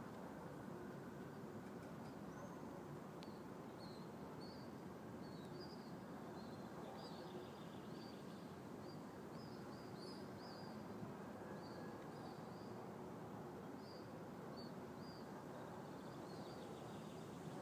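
Small birds chirping in short repeated calls over a faint, steady hum of outdoor background noise.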